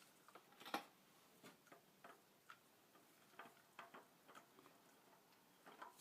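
Near silence broken by faint, irregular ticks: engine oil dripping into the drain pan after the drain plug and oil filter have been removed, one drip louder under a second in.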